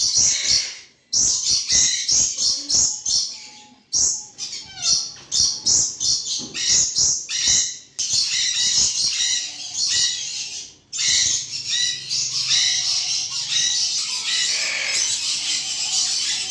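Many caged birds chirping together, a dense run of short high-pitched calls that overlap, broken by a few brief sudden gaps.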